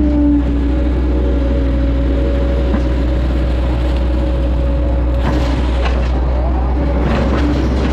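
Hitachi hydraulic excavator's diesel engine running steadily under digging load, with a steady hydraulic whine over the low hum as the boom and bucket work. A couple of brief knocks or scrapes come about five and seven seconds in as the bucket works the mud.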